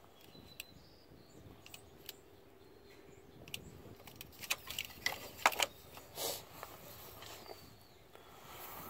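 Scattered light clicks and metallic knocks of hands working parts and fittings in a diesel engine bay. They are thickest and loudest about halfway through, with a short rustle soon after.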